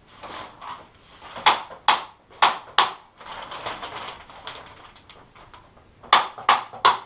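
Staple gun firing staples through polythene sheeting into a timber frame: four sharp shots in quick succession, a pause filled with the rustle of the plastic being pulled tight, then three more shots near the end.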